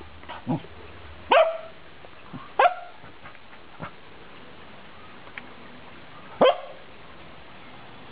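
Dog giving a handful of short, sharp barks spaced a second or more apart, with a longer pause before the last loud one.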